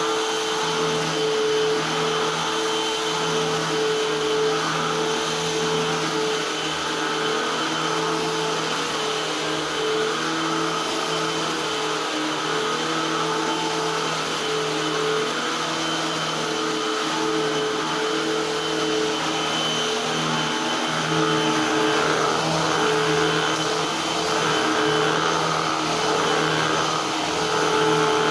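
Eureka AirSpeed Unlimited Pet vacuum cleaner running steadily: a constant motor hum with a thin high whine over the rush of air. The air noise swells slightly a few seconds before the end.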